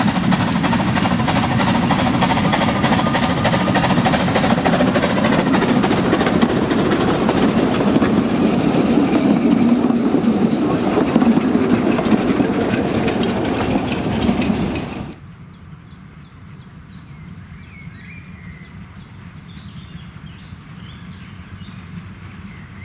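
Narrow-gauge steam train running past close by, loud and steady for about fifteen seconds. It then drops suddenly to a much quieter running sound as the train recedes into the distance.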